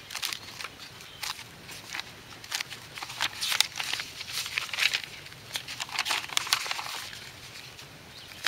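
Sheets of printer paper rustling and flapping as a thick stack of pages is leafed through by hand: an irregular run of quick, crisp swishes, busiest in the middle.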